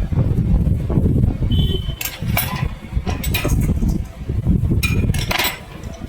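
Metal hand tools clinking as they are picked up and handled, a run of sharp clinks starting about two seconds in, over a steady low rumble.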